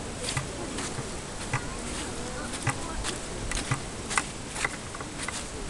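Footsteps as irregular light clicks and taps, roughly two a second, over a steady hiss and a faint murmur of distant voices.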